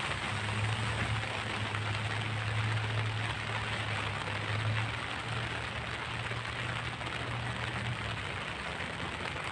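Steady rain falling on an umbrella and the ground, an even hiss of drops, with a low steady hum underneath that stops near the end.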